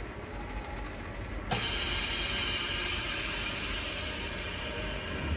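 Screen laminating machine running its vacuum-and-pressure cycle: over a low steady machine hum, a loud rush of hissing air starts suddenly about a second and a half in and holds steady, easing slightly.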